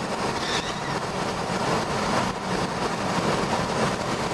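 Steady rushing road and wind noise from inside a moving car, its tyres hissing on wet pavement.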